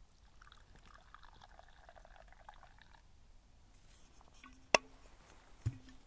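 Liquid poured from a thermos flask into a cup for about three seconds, followed by a sharp click about three-quarters of the way through and a soft knock near the end.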